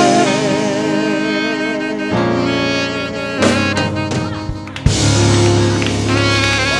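Instrumental church worship music: held chords under a wavering melody line. The chord changes about two seconds in, and a sharp hit near five seconds brings in a new, fuller chord.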